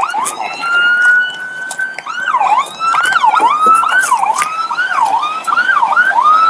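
Police car siren: a slow rising wail, then rapid up-and-down yelps from about two seconds in, switching back to a long wail near the end.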